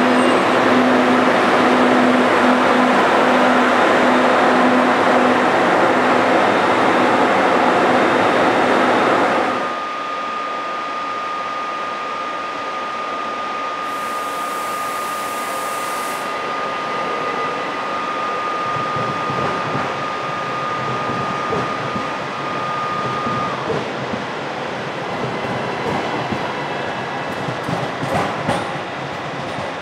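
ÖBB class 1116 Taurus electric locomotive of a Railjet running loudly beside the platform, a broad hum with a steady low tone, until it cuts off abruptly about ten seconds in. Then an ÖBB class 4024 Talent electric multiple unit arrives at the platform: a steady high whine for about thirteen seconds, and wheel clatter over the rails in the second half.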